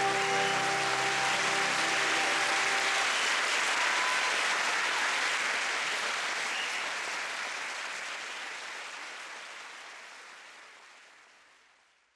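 Theatre audience applauding, with a held chord of music sounding under it for the first three seconds. The applause then fades out steadily and is gone near the end.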